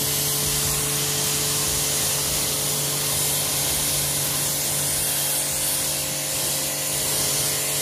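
Aimex D7 1800-watt electric pressure washer spraying a fanned-out water jet onto a motorcycle's tank and engine: a steady, loud hiss of spray with a steady hum underneath.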